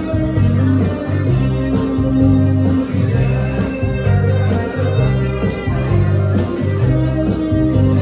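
A small band playing an instrumental passage: electric guitars and keyboard over a repeating low bass line, with a steady beat of ticks about twice a second.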